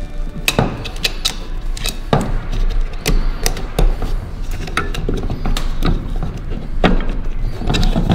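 Plastic parts of a Stihl AutoCut 46-2 trimmer head being fitted together by hand: irregular sharp clicks, taps and knocks as the spool and housing are pressed and turned into place.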